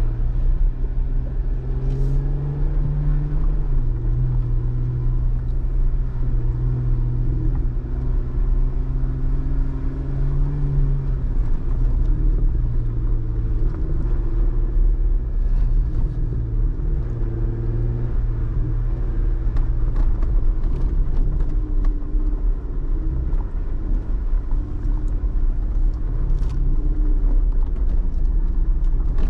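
Four-wheel-drive vehicle's engine running steadily as it drives slowly along a rough dirt trail, over a low rumble. The engine note drops in pitch about four seconds in and again about eleven seconds in, and a few sharp clicks stand out.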